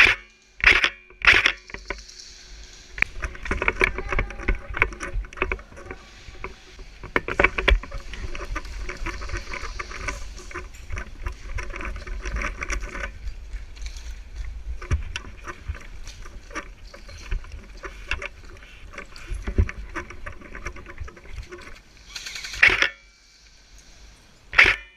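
A few sharp airsoft gun shots, three near the start and two near the end, with rustling and bumping of the body-mounted camera and gear as the player moves in between.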